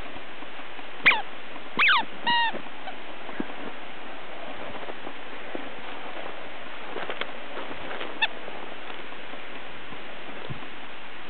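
Border Collie puppy giving three short, high yips in quick succession about a second in, each sliding down in pitch, with a couple of fainter ones later. A steady hiss runs underneath.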